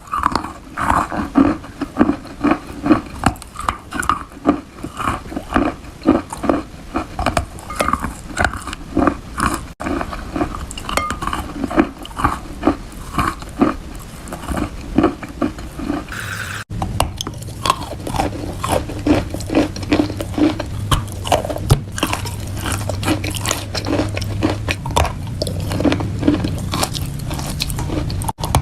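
Close-up biting and chewing of wet chalk, with moist crunches coming about twice a second. The sound cuts off twice, and a steady low hum sits under the later crunches.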